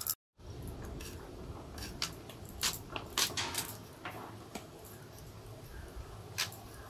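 Vegetables being cut on a boti, a curved fixed blade: scattered short, crisp cutting clicks, about eight in all, over a steady low hum.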